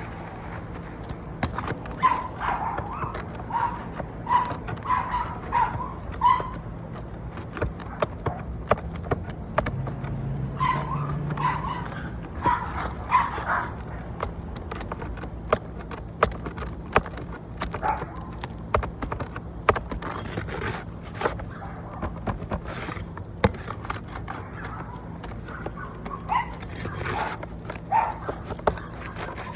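A dog barking in runs of short, quick barks, with scattered sharp clicks and knocks from tools working at roof shingles and their nails.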